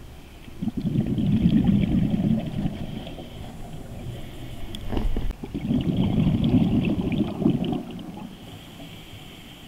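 Scuba regulator exhaust bubbles, heard underwater: two long bursts of bubbling about five seconds apart, each one exhalation of the diver's breathing, with a sharp click between them.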